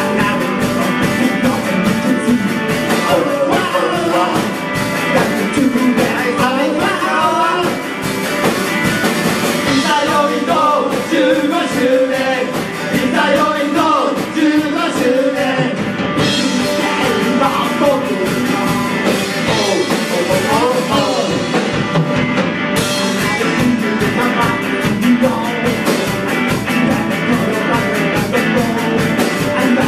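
Live rock band playing: electric guitar and a drum kit with cymbals, and a man singing over them.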